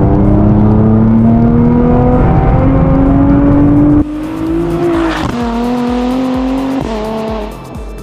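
Tuned Nissan GT-R R35's twin-turbo V6 accelerating, its note climbing steadily. About halfway through the sound drops suddenly in loudness, and the engine goes on pulling, with a dip in pitch at each of two gear changes.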